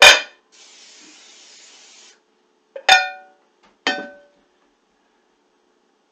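A ringing clink of a casserole dish or lid being handled, then an aerosol can of cooking spray hissing steadily for about a second and a half as it coats a dish, then two more ringing clinks as glass lids and dishes are picked up and set down.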